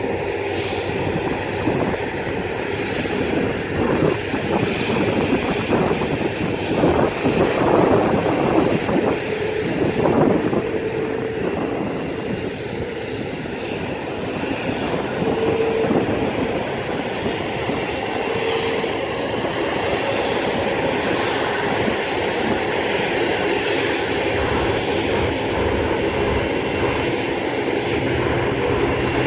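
Airbus A330's twin jet engines running at low taxi thrust as the airliner rolls along and turns onto the runway, a steady whining roar.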